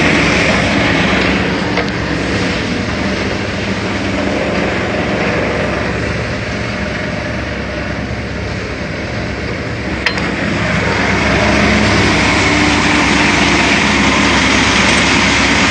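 Engine-driven paddy thresher running steadily. Its sound sags a little through the middle and comes back up about eleven seconds in, with one sharp click just before.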